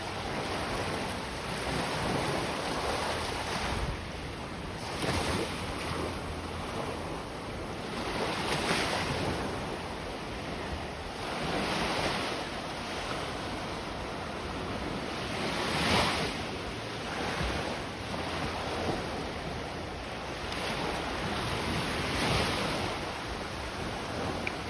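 Sea surf breaking and washing up the beach, swelling every three to four seconds, with wind on the microphone.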